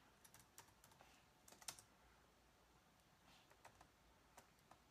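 Faint typing: a few short clicks in small irregular clusters, a search being typed in.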